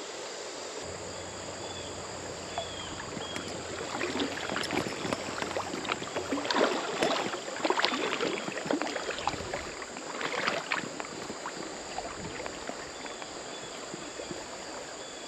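Shallow creek water running, with irregular splashing and sloshing that comes and goes, busiest in the middle stretch.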